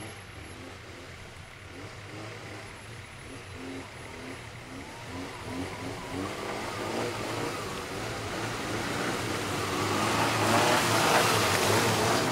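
Engines of off-road 4x4s driving up a snowy road, growing steadily louder as the lead jeep approaches and passes close by about eleven seconds in.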